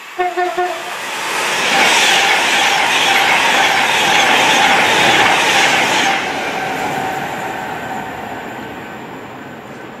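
A short train horn toot just after the start, then a train passing through the station at speed. The rush of wheels on rail and air swells from about one second in, stays loud until about six seconds, then fades away.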